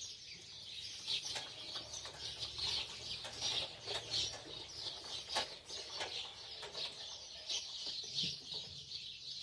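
Many small birds chirping at once, a dense, continuous twittering chatter, with a few sharp clicks scattered through it.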